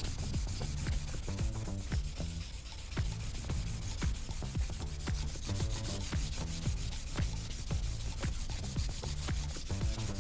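A rust eraser scrubbed back and forth against the steel blade of a VG10 nakiri knife in quick, repeated strokes, rubbing off surface rust.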